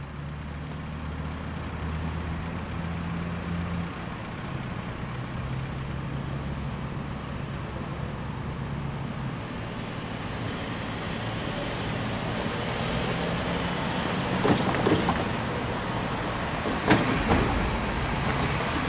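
Road traffic: a vehicle engine idling with a low hum for the first few seconds, then passing vehicles whose engine and tyre noise grows louder through the second half, with a few sharp knocks near the end.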